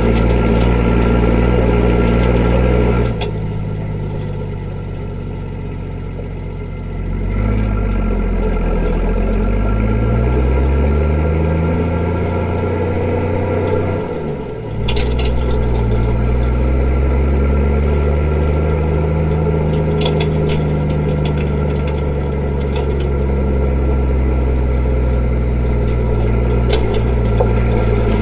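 Straight-piped Nissan Patrol TD42 inline-six diesel driving off: engine note drops off the throttle about 3 seconds in, then revs climb through a gear. After a short break in the pull about halfway through, likely a gear change, it climbs again and holds steady.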